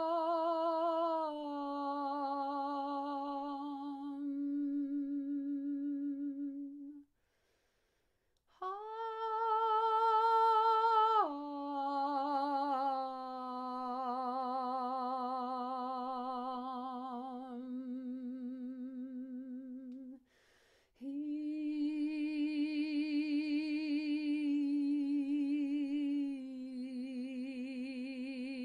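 A woman's voice toning long held open vowels with vibrato, wordless, for sound healing. The notes step between a few low pitches, with two short breaks for breath and one higher, louder note about a third of the way through.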